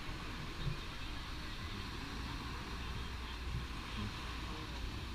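Steady outdoor background noise, a low rumble under an even hiss, with faint distant voices now and then.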